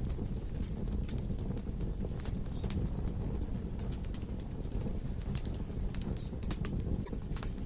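Wood logs burning in a fireplace: a steady low rumble of flame with frequent irregular crackles and sharp pops.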